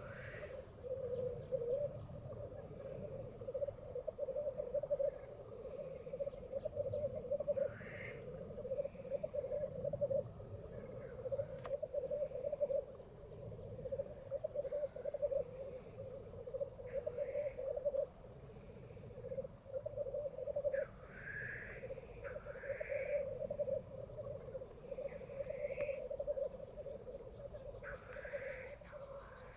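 Black grouse at a lek, bubbling without a break in a low, cooing warble. Several times, harsh hissing calls cut over the bubbling, the loudest of them near the end.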